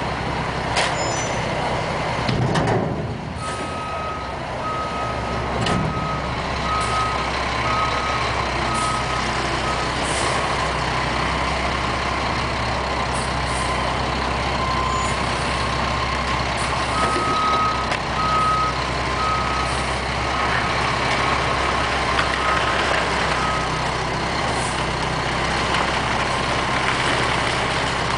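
Front-loader garbage truck's diesel engine running steadily, with its reverse alarm sounding two runs of evenly spaced single-pitch beeps, a little over one a second, as the truck backs up.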